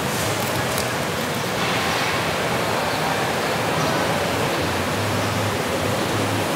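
Steady, even rushing background noise of a wholesale market hall, with no distinct events.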